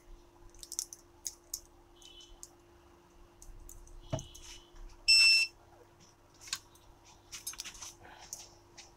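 Small clicks and taps of tiny parts and tools being handled, with a dull knock about four seconds in. Just after five seconds comes a single short, loud, high electronic beep.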